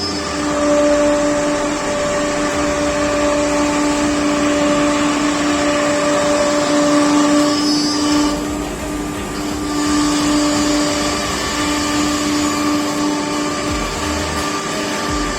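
CNC nesting router running: a steady whine over a constant rushing noise, with a brief change about eight seconds in.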